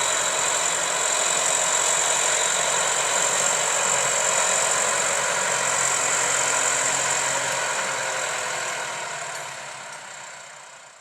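New Holland T6.180 tractor's diesel engine running steadily under ploughing load, fading out over the last few seconds.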